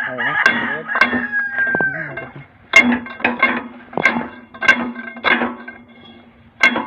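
Hammer blows on the steel pin of an excavator's boom cylinder, about ten sharp strikes, each ringing like struck steel, as a stuck pin is driven out. In the first two seconds a rooster crows over the strikes.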